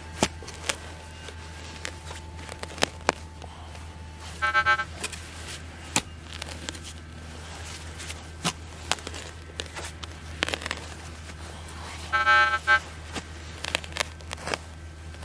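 Metal detector target tone: two short, pulsing electronic buzzes, about four and a half seconds in and again around twelve seconds in, as the detector sounds off on a buried target. Between them come sharp clicks and knocks, over a steady low hum.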